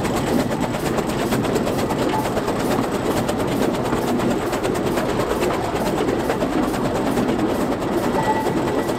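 Small narrow-gauge steam locomotive running along the track, heard from its cab: a steady running noise with the wheels clicking and clattering on the rails.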